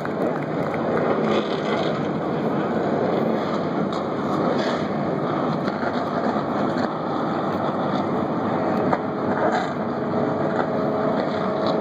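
A full grid of sports-prototype and GT race car engines running together just after the start-engines command, heard from far off as a steady mixed din. About two-thirds of the way in, a couple of held steady tones rise out of it.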